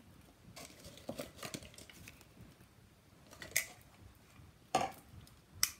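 Artificial leaves being scattered by hand onto a wooden floor: faint rustling with scattered soft taps, the two loudest near the end.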